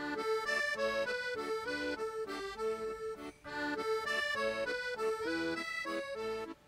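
Instrumental background music: a tune of short, changing notes.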